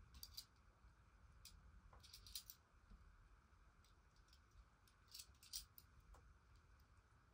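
Near silence with a few faint, sharp clicks and taps, bunched about two seconds in and again past five seconds: a serving utensil knocking against the Crockpot Express's metal inner pot and a plate as steamed green beans are dished out.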